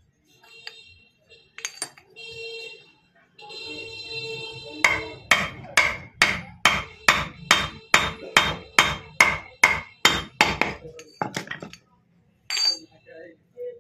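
Hammer tapping steel parts of a motorcycle gearbox, driving a 6905 ball bearing into place: a few ringing metallic clinks, then about seventeen even strikes at about three a second, ending in a couple of single knocks.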